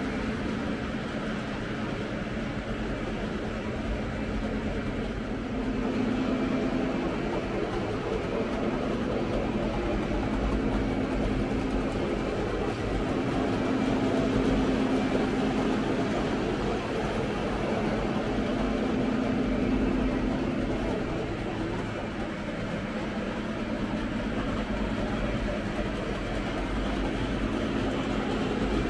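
O gauge model trains running on three-rail track: a steady rolling rumble of wheels on the rails and hum of their motors, swelling several times as trains pass close by.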